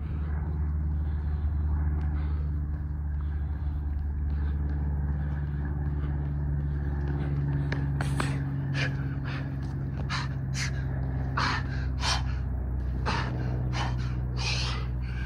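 A man breathing hard from exertion while doing burpees, with short gasping breaths about two a second starting about halfway through. Under it runs a steady low hum.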